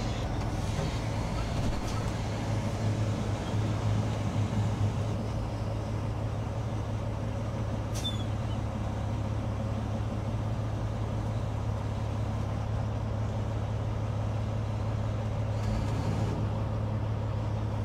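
Heavy diesel engines running steadily with a low drone, from the idling truck and a container handler lowering a shipping container onto its chassis. A single short click about eight seconds in.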